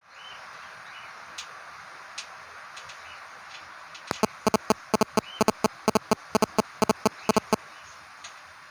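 Faint short cockatiel chirps over a steady hiss. Then, from about four seconds in, a rapid irregular run of about eighteen loud, sharp clicks lasting some three and a half seconds.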